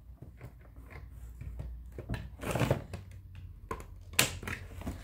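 Scissors snipping and crunching through the cardboard packaging that holds a toy in its box: a run of small clicks and crackles, with a longer crunch about two and a half seconds in and a sharp snip about four seconds in.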